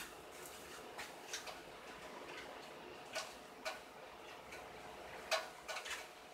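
Scattered light clicks and taps from a newly hatched quail chick stirring among eggshells, the loudest about five seconds in. Under them runs the steady hum of the homemade incubator's fan.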